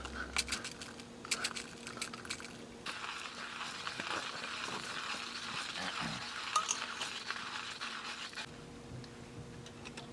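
Food sizzling in a hot pan, with a few clicks of utensils in the first couple of seconds; the sizzling stops abruptly about eight and a half seconds in.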